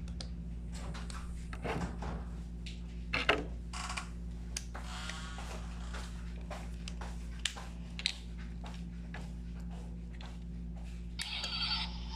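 Packaging being handled during an unboxing: scattered short clicks and rustles over a steady low hum.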